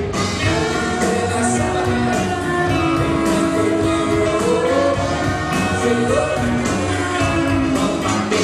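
A song with a sung vocal holding long, gliding notes over a full band with steady drum hits.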